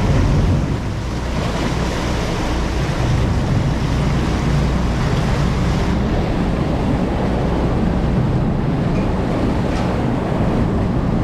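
Steady wind rushing over the microphone with sea noise, over the low, steady hum of a large charter fishing boat's engines.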